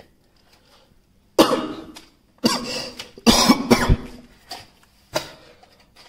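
A person coughing several times in a row, harsh sudden coughs spread over a few seconds, with a quiet moment before the first.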